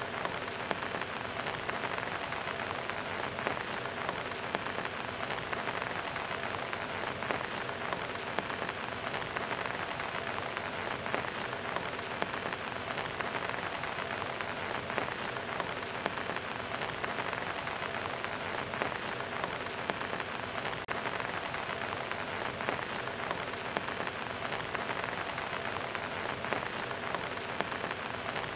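Steady rain falling and splashing on hard surfaces: a dense, even patter of many small drop impacts.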